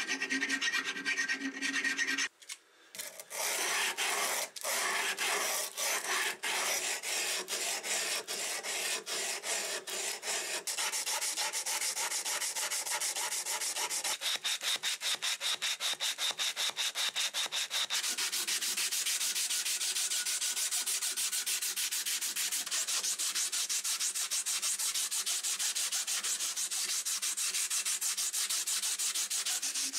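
Hand filing and sanding on rusty steel pincers: a round file rasping with rhythmic strokes through the pivot hole, then, after a short break, a quicker steady back-and-forth of an abrasive cloth strip rubbing the handle.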